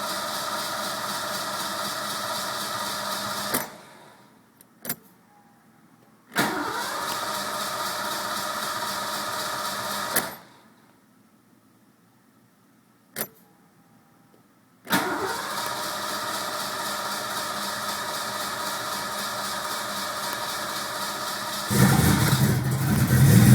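Ford Mustang 5.0 V8 cranked on its starter three times, each a steady run of several seconds that does not fire, with a single click in each pause between tries. Near the end it suddenly catches and starts, louder. This is a hard-start fault that the owner wonders may be the ignition coil.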